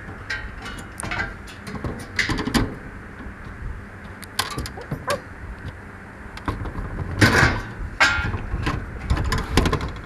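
Irregular metal clanks, scrapes and rattles as the wire fan guard and sheet-metal parts of a rooftop air-conditioning package unit are handled, with the loudest clank about seven seconds in. A low steady rumble runs underneath.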